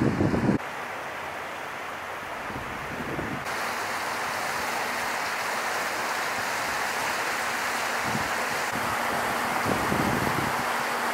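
Shallow salmon stream rushing over rocks: a steady hiss of running water. A gust of wind buffets the microphone in the first half second.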